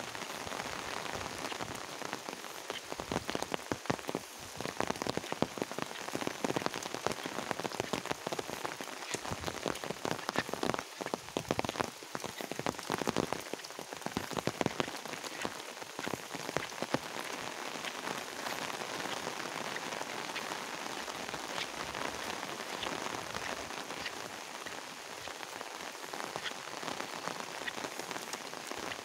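Steady rain falling, with many close, sharp drop hits on a fabric umbrella overhead. The hits come thickest in the first half.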